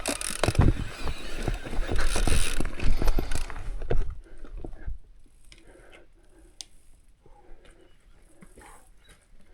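Mountain bike rattling and knocking as it rolls over rocks, with a low rumble under a dense run of clicks for about the first five seconds. After that it goes quieter, with only scattered clicks.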